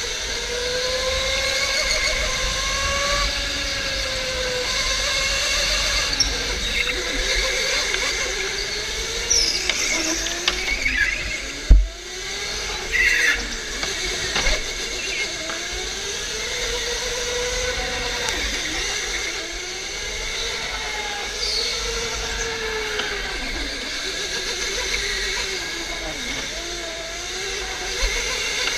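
Electric go-kart motor whining, its pitch rising and falling as the kart speeds up and slows through the corners, with tyres squealing on the smooth concrete track. A single sharp knock about twelve seconds in is the loudest moment.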